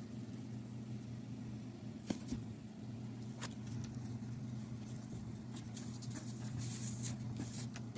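Steady low electrical hum, with a few faint clicks and light rustles.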